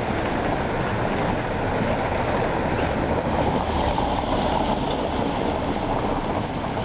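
Steady rushing of water from the Shirakawa canal, a shallow stream running along the street, with a car driving past close by around the middle.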